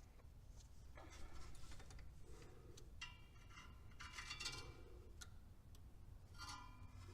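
Faint small metallic clicks and light scraping from hand work inside a distributor while a Pertronix ignition module is screwed into place.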